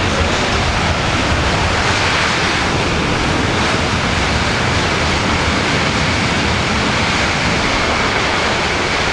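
C-17 Globemaster III's four Pratt & Whitney F117 turbofan engines running at high power in a steady, loud roar, in reverse thrust to back the aircraft up under its own power. A faint steady whine comes in about three seconds in.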